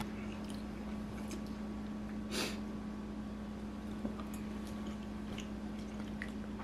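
Quiet eating sounds: faint fork clicks and chewing of a mouthful of baked trout, with one short hiss about two and a half seconds in, over a steady low hum.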